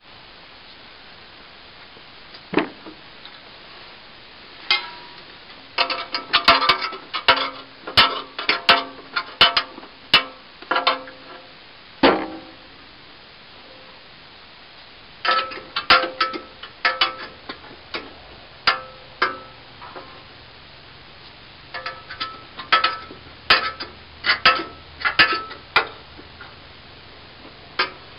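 Hands pulling packed wood chips and twigs out of a plugged wood chipper's metal housing: sharp clicks, knocks and rattles of debris against metal, coming in two long bouts with a quieter pause between.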